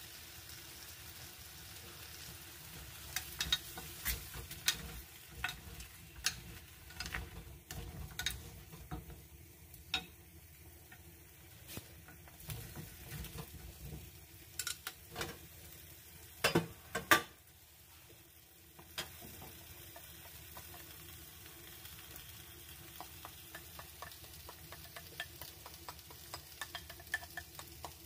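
Chicken pieces and potatoes sizzling as they stir-fry in a wide pan over a gas burner, turned with a wooden spatula that knocks against the pan now and then; the loudest clacks come about seventeen seconds in, followed by a finer, steadier crackle.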